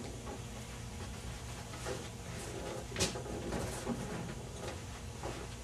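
Quiet handling noises as a knee bolster is set and the patient's legs are settled on a padded treatment table: a few soft knocks and one sharp click about three seconds in, over a steady low hum.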